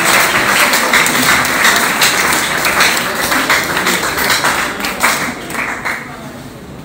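Audience applauding, a dense crowd of hand claps that dies down about five to six seconds in.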